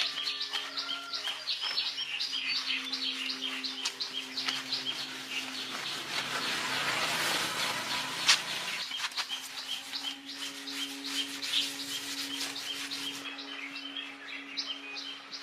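Small birds chirping in quick, repeated high notes over a steady low hum. A hiss swells up in the middle, and there is a single sharp click about eight seconds in.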